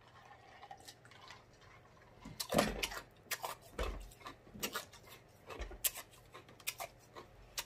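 A man drinking from a glass mug close to the microphone, followed by a string of short wet lip smacks and mouth clicks starting about two seconds in.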